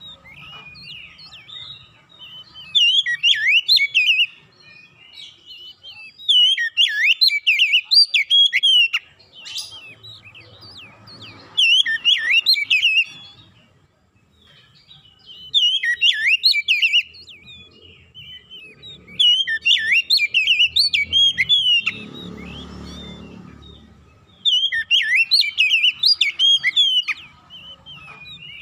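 An Oriental magpie-robin (kacer) singing in six loud bursts of rapid, varied whistled phrases, each one to three seconds long, with short pauses between. This is song of the kind used to draw other magpie-robins' attention.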